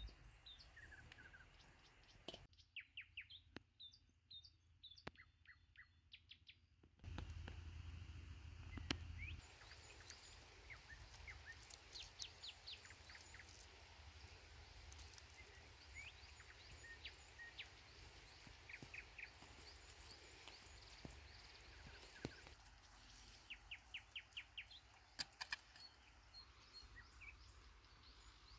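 Faint birds chirping in woodland: quick runs of short, high chirps come and go over a quiet background.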